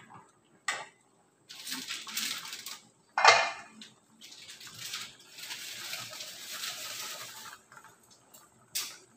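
Metal ladle stirring soup in an aluminium pot, scraping and clinking against the pot in spells, with one loud metallic clank about three seconds in.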